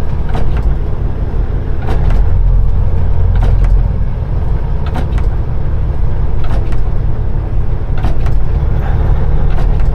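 A Peterbilt 389 semi truck driving: a steady low engine and road drone, with a faint tick about every second and a half.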